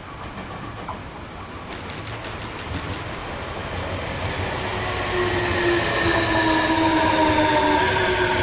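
Tobu 60000 series electric train pulling into a station: its motor whine falls steadily in pitch as it brakes and grows louder as the cars pass close. A short run of rapid clicks from the wheels comes about two seconds in.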